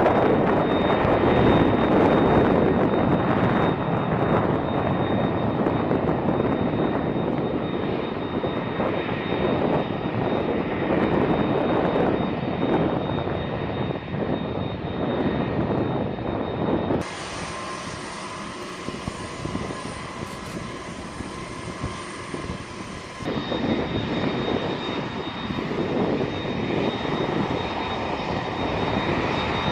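Turbofan jet engines of a Lockheed C-5M Super Galaxy running: a loud steady roar with a thin high whine over it. About seventeen seconds in the sound switches abruptly to a quieter, thinner engine sound, then switches back about six seconds later.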